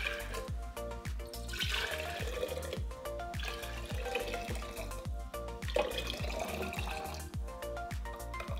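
Background music with a steady beat, over the splash and trickle of juice being poured from a plastic jug into glass jars.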